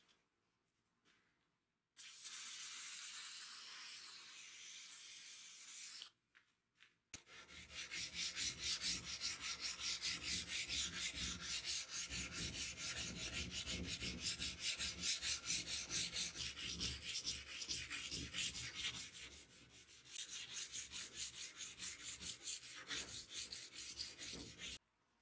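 Sandpaper rubbed by hand along a spring-steel sword blade. A few seconds of steady rubbing, then after a short gap fast back-and-forth strokes, about three a second, until it stops abruptly near the end.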